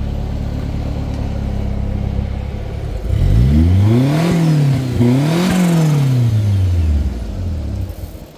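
Turbocharged, fuel-injected 660cc four-cylinder engine of a Subaru Sambar kei truck idling steadily, then revved twice, about three seconds in, each rev rising and falling in pitch before settling back toward idle near the end.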